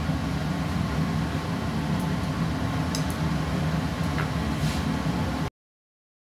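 Steady low machine hum with a few faint light clicks; the sound cuts off abruptly about five and a half seconds in.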